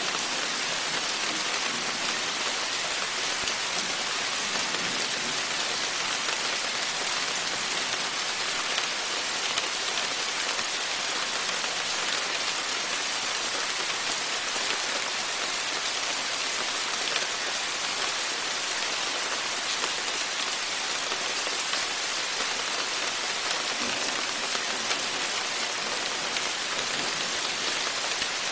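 Steady rain falling, a dense even hiss that holds unchanged throughout.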